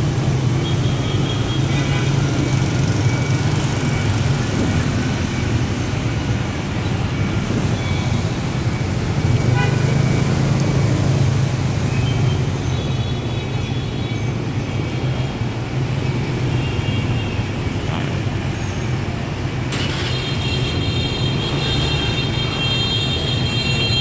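Busy street traffic of motorbikes and cars: a steady rumble of engines and tyres, with horns tooting now and then and a longer, high horn sounding through the last few seconds.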